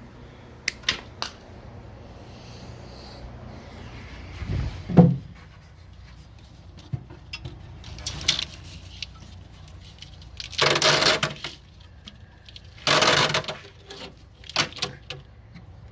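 Hand-work noises while removing an air-conditioning power cable from a vehicle's wiring: a few light clicks, one loud thump about five seconds in, then three short rasping rubs or scrapes.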